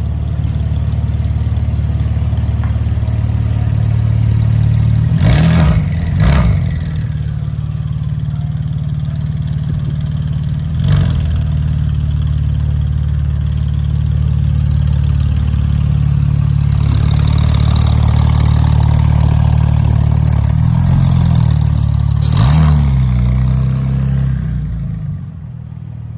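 2007 Porsche 911 (997) Turbo's twin-turbo flat-six, through a Fabspeed muffler-bypass exhaust, running at a steady engine speed. It is broken by a few short, sharp bursts, two close together about five and six seconds in, one near eleven seconds, and one near the end.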